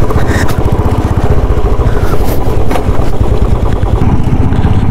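Motorcycle engine running while riding, with a rapid steady firing beat and a few sharp knocks over it.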